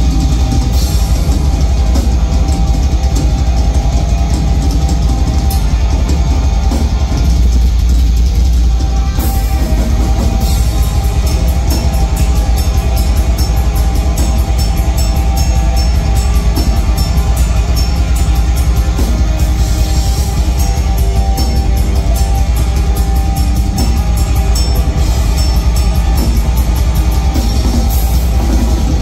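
Metal band playing live, loud guitars and a drum kit over a heavy low end. About nine seconds in the drums pick up into fast, even cymbal hits that run on.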